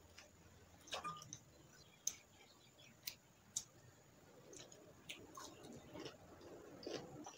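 Faint close-miked eating sounds: wet chewing of chicken with sharp mouth clicks and smacks about once a second, and fingers picking at the meat.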